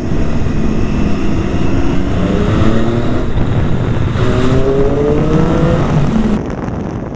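Motorcycle engine accelerating, its pitch climbing twice as it pulls up through the gears with a drop at the shift between, over steady wind rush on the microphone.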